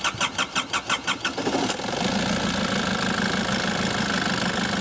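Nissan ZD30DDTi 3.0-litre four-cylinder turbodiesel cranking on the starter with an even beat of about six pulses a second. It catches about a second and a half in and settles into a steady idle.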